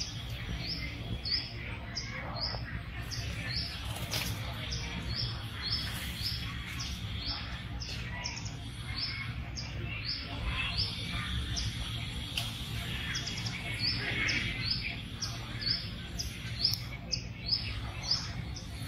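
A bird chirping over and over, one short high note about two to three times a second, with a brief pause about twelve seconds in, over a steady low background rumble.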